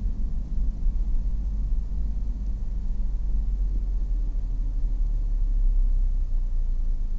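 Car heard from inside the cabin, a steady low rumble of engine and tyres as it rolls toward a stop, with a faint engine note dropping a little in pitch around the middle.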